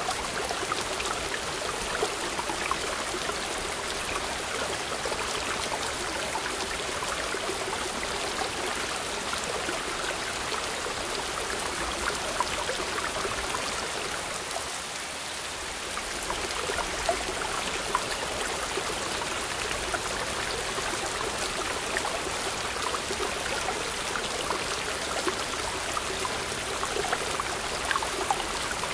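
Shallow mountain stream rushing and splashing over boulders in a small cascade: a steady white-water rush with scattered small splashes.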